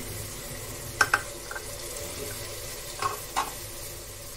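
Mutton with garlic, ginger and dried red chillies frying in oil in a pot: a steady sizzle, with a few sharp clicks about a second in and twice more around three seconds.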